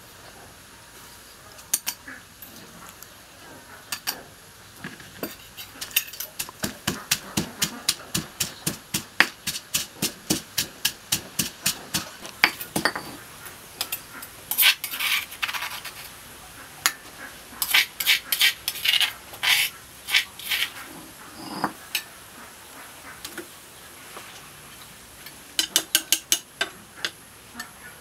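Pestle pounding in a mortar to make chili sauce: a steady run of sharp knocks at about three a second, then shorter clusters of knocks with metal spoon clinks.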